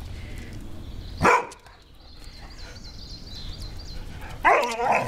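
Dogs barking in play: one sharp bark about a second in, then a longer, louder burst of barking near the end.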